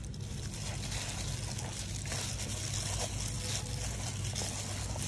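Wet squishing and plastic rustling of a plastic-gloved hand mixing cellophane noodles in a bowl, over a steady low hum.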